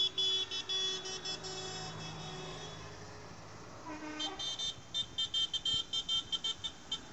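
High-pitched horns on passing tractors tooting in rapid repeated short blasts, in two bursts, over the low, steady running of a tractor engine that fades after a few seconds.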